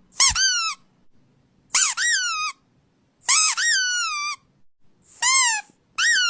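Five high-pitched squeaks, each rising sharply then falling away; the last one near the end is held longer.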